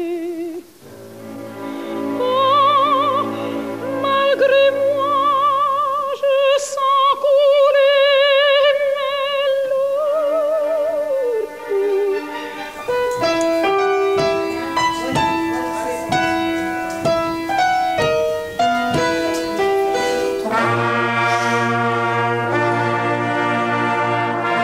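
An operatic soprano sings a slow, held phrase with wide vibrato over orchestral accompaniment. About halfway through it gives way to a youth brass band of trumpets, euphoniums and tubas, playing a run of short notes and then louder sustained chords near the end.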